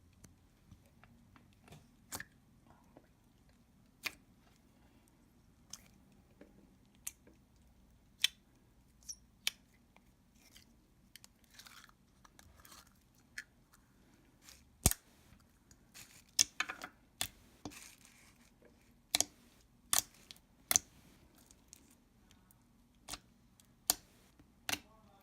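Thick clear slime with pastel foam beads being squeezed, stretched and poked by hand: scattered sharp pops and clicks at uneven intervals, with soft squishing between.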